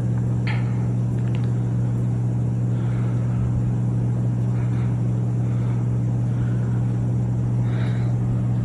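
Harbor Breeze Armitage 42-inch ceiling fan running on high speed, its small motor giving a loud, steady hum. The fan is noisy on high, and the owner says it has already developed a bearing noise in under a year.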